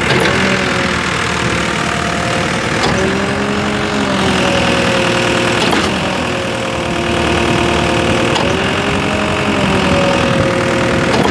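Concrete pump's engine running under load while pumping concrete: a steady drone with a whine that shifts in pitch about every three seconds, each shift marked by a short clunk as the pump changes stroke.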